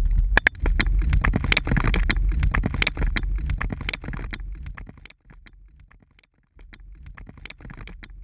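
Aftermath of an explosive demolition in sand: the low rumble of the blast dies away while falling sand and debris patter and click down around the microphone. The rumble and debris fade about five seconds in, leaving scattered late ticks.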